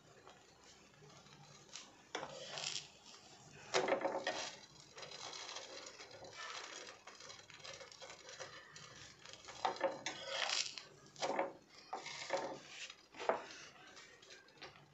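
A utensil scraping and clattering on a flat tawa griddle as a toasting bread sandwich is turned over, in irregular spells. The loudest is about four seconds in, with more between ten and thirteen seconds.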